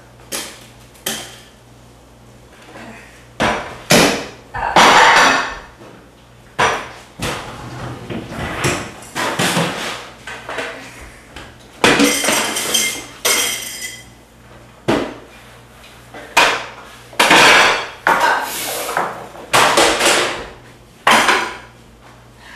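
Irregular run of loud kitchen knocks and clatters, dishes, pans and utensils being banged and handled in a rush, one every second or two, some strikes ringing like metal.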